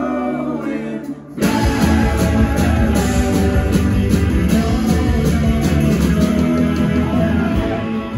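Rock band playing live: a held chord dies away about a second in, and after a brief break the full band comes back in with drums, bass guitar, electric guitar and keyboards.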